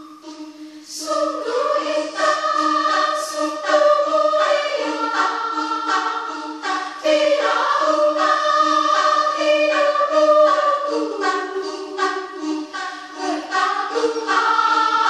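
Women's choir singing in several parts, the voices moving together over a held low note. It starts softly and comes in fully about a second in.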